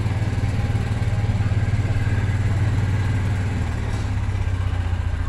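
Gas-powered golf cart engine running steadily as the cart drives along, a low even drone.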